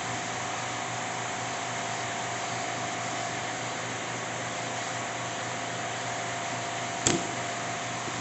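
Steady fan-like hum with a faint steady tone underneath, and a single sharp click about seven seconds in.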